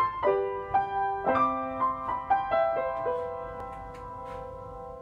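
Piano music: a quick run of struck notes, then a chord left to ring and slowly fade.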